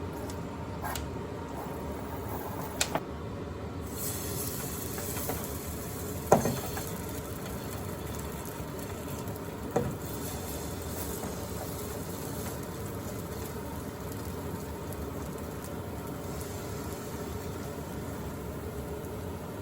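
Steady hiss with a few short clicks of tableware, a double click about three seconds in and the loudest knock about six seconds in.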